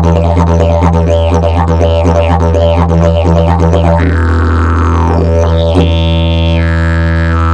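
Fiberglass and prickly pear fibre double-slide didgeridoo playing a steady low drone. Quick, shifting mouth-shaped overtone sweeps ride on it for about four seconds, then a slower falling sweep, and from about six seconds in a held high overtone.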